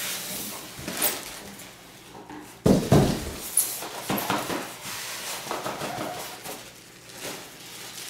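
Styrofoam packing and cardboard box rubbing and scraping, with plastic wrap rustling, as a boxed floor cleaner wedged in its styrofoam is pulled up out of the box. A heavy thump a little under three seconds in, as it comes free.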